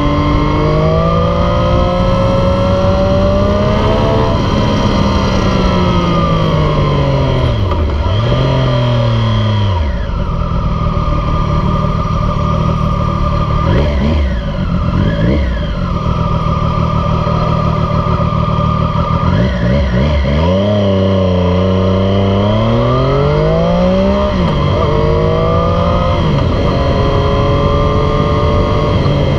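A 2018 Triumph Street Triple 765 RS inline-three engine running loud through a Yoshimura Alpha T exhaust. The revs climb, then wind down as the bike slows. The engine idles in neutral for several seconds with a couple of quick throttle blips, then revs up hard again, with a gear change about three-quarters of the way through.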